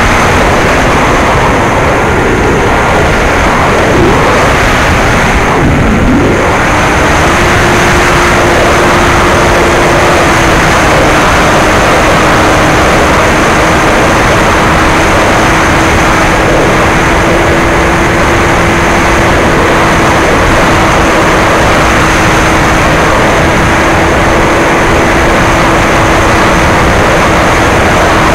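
Bixler 2 RC foam plane in flight, heard from its onboard camera: heavy wind rush over the microphone, with the steady hum of its brushless motor and propeller. After a brief dip about six seconds in, the motor tone settles to a steady pitch and holds.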